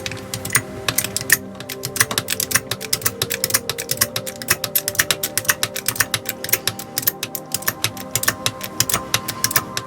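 Rapid, irregular clicking, about eight to ten clicks a second, starting abruptly, over background music.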